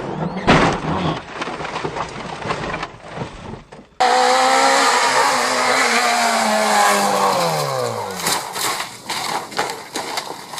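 Rally car sounds with a sharp knock about half a second in. After an abrupt change about four seconds in, a rally car engine's revs fall steadily over about four seconds, followed by rough noise with scattered knocks and clatter.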